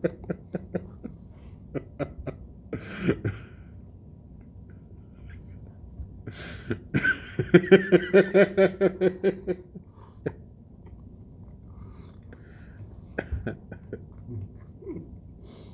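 Close-miked mouth and throat noises from a man with the hiccups: a string of short clicks at the start and a cough-like burst about three seconds in. From about seven to nine and a half seconds comes a run of rapid, pulsing laughter, the loudest part.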